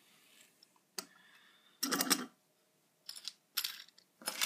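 Short clicks and clatters of small toy cars being handled and set down: a single click, then a brief clatter, then a few quicker clicks near the end.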